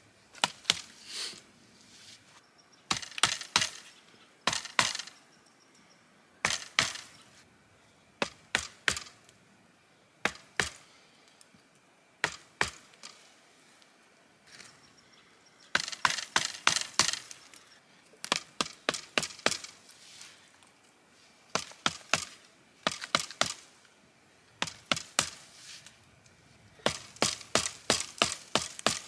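Copper axe head chopping into the base of a young aspen trunk: sharp chopping strikes in bursts of several quick blows, with short pauses between the bursts.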